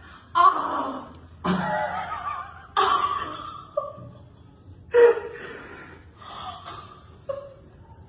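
A patient's breathy gasps and exhalations, about six in a row and each with a sharp start, during a chiropractic adjustment.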